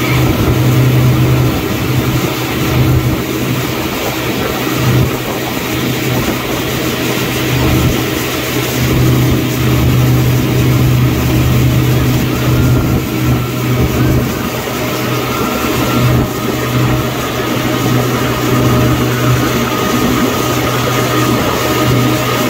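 Motorboat engine running steadily under load while towing a tube, a steady low hum over the rush of churning water in the wake.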